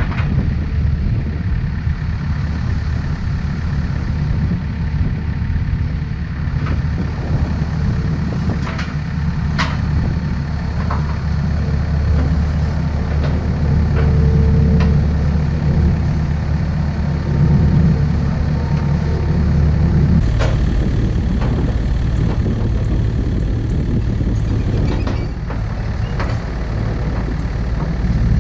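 Takeuchi excavator's diesel engine running steadily, its note shifting about twenty seconds in, with occasional sharp metallic knocks over it.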